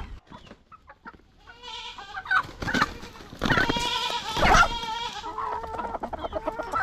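Goat bleating in a quavering call: a short bleat about two seconds in, then a longer, louder one around the middle, with chickens clucking near the end.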